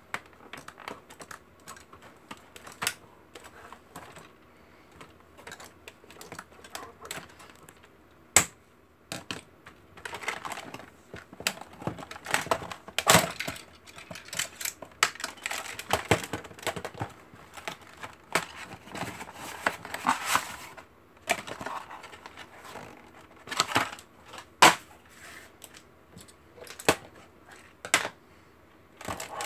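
A plastic toy dart blaster being unpacked from its cardboard backing card: scissors cutting the ties, then the blaster and card being pulled apart and handled, in irregular clicks and crinkly rustles, busiest in the middle.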